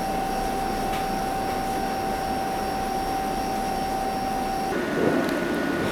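Steady machinery drone of a ship under way, engines and ventilation, with a steady whine over it. Near the end the sound changes to a slightly different drone with a higher whine.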